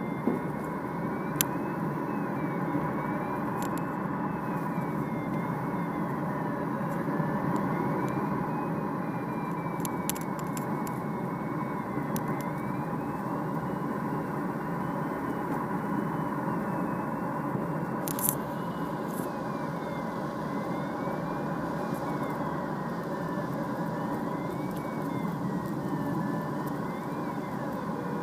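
Steady rush of air and engine drone heard inside the cockpit of a Duo Discus glider on aerotow, the drone coming from the tow plane ahead. A faint high electronic tone slowly rises and falls throughout, and there are a couple of brief clicks.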